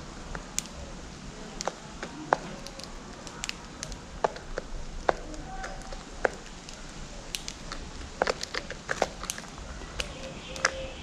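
Small birds pecking at seeds: irregular sharp taps and cracks, several a second at times, with a few faint short chirps.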